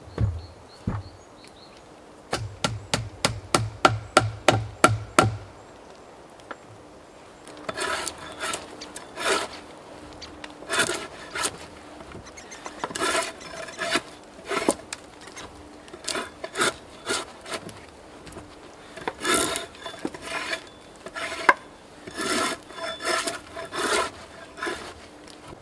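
Hand work on wood: a quick run of about a dozen evenly spaced knocks, about three a second, then after a short pause a series of uneven rough scraping or rubbing strokes on wood.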